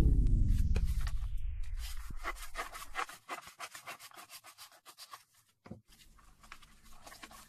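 A music track winds down at the start, its pitch sliding downward as it fades out like a tape stopping. Then gift wrapping paper rustles and crackles faintly in short, irregular crinkles as it is handled and folded.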